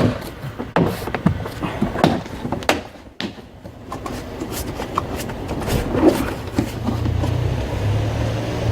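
Car door parts being handled and fitted back together: a run of sharp clicks, knocks and rattles, then a steady low hum for about the last two seconds.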